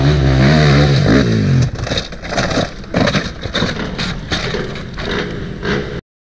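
Dirt bike engine revving hard on a steep climb, its pitch wavering as the throttle is worked. After about two seconds the engine note gives way to irregular knocks and scraping as the bike crashes and tumbles down the slope. The sound cuts off suddenly near the end.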